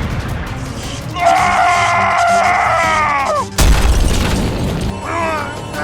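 A long, high-pitched cry held for about two seconds, falling in pitch at the end. Then a sudden loud boom lasting about a second, followed by short falling cries, over background music.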